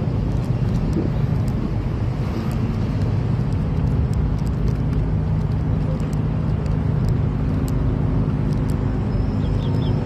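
Boat engine idling, a steady low hum.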